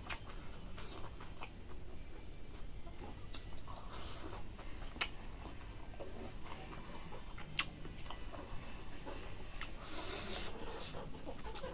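Close-miked eating sounds: a man chewing with wet mouth clicks and smacks, and his fingers squishing and mixing rice into pork curry. Scattered sharp clicks with a few short rustling smears.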